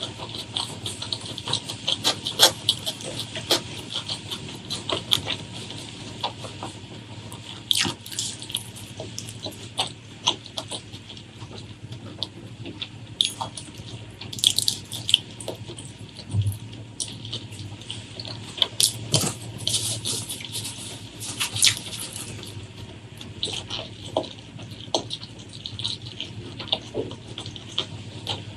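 Close-miked wet chewing and lip smacking: irregular sticky clicks and squelches, several a second, with denser clusters around the middle.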